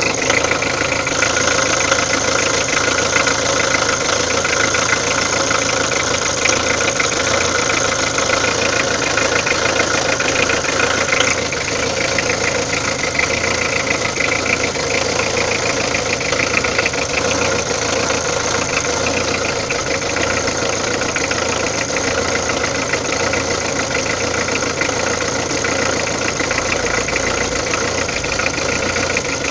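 Peugeot diesel engine running steadily at idle with an abnormal engine noise, the fault being shown for diagnosis. It gets slightly quieter about eleven seconds in.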